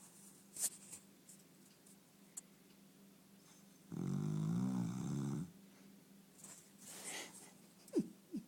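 Cocker spaniel snoring in its sleep: one loud, drawn-out snore about four seconds in, lasting about a second and a half, with softer breathing and snuffles around it. Near the end comes a short sharp click and a quick falling squeak.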